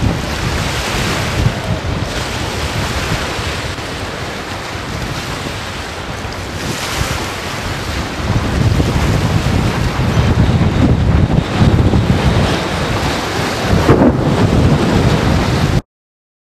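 Strong storm wind buffeting the microphone, with a heavy low rumble that grows louder about halfway through. The sound cuts off abruptly shortly before the end.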